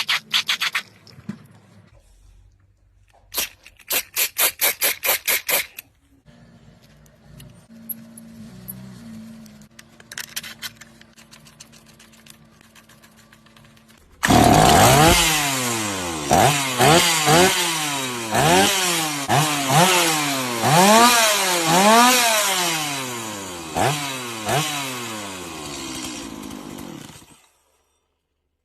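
Two-stroke chainsaw engine: a short run of rapid pulses, then a quiet steady idle, then it is revved hard up and down many times before cutting off suddenly near the end.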